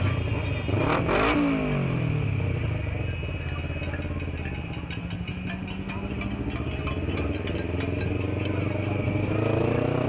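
Sport motorcycle engine ridden slowly in traffic: a brief rev about a second in, then the pitch falls away and it runs steadily at low revs, climbing again near the end.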